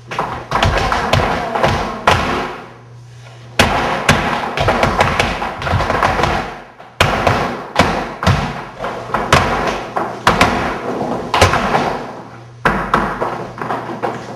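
Flamenco footwork by several dancers in heeled shoes on a wooden floor: dense, rapid heel and toe stamps in phrases, broken by a few brief pauses.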